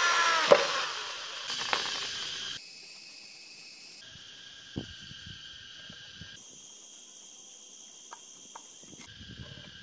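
Electric drill whining down to a stop after boring through aluminium channel, with a sharp click as it winds down. Then a hand screwdriver driving small screws into the aluminium frame gives a few light clicks over a faint, steady high insect chirr.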